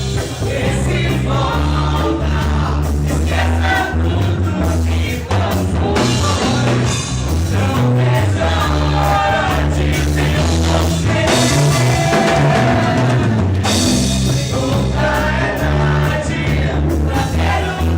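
A live band playing a worship song: a sung lead vocal over drum kit and bass.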